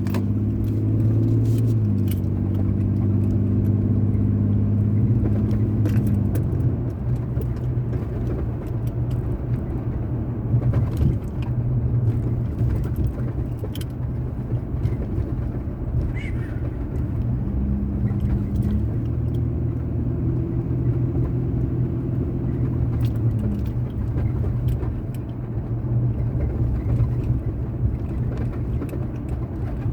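A car driving on town streets: steady tyre and road noise under a low engine drone that strengthens for the first several seconds and again around twenty seconds in as the speed changes.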